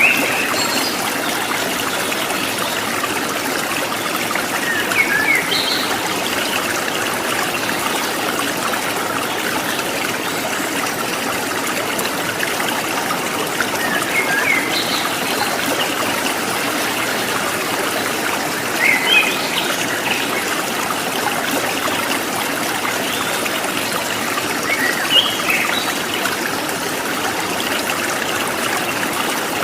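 Stream of running water flowing steadily, with short bird chirps breaking in about five times.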